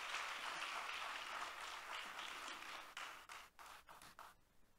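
Church congregation applauding in praise. The clapping fades away over about three seconds into a few last scattered claps.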